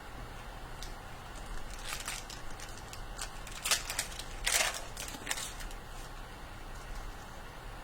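Plastic wrapping crinkling as trading cards are handled, in a few short bursts with the loudest about four and a half seconds in, over a low steady hum.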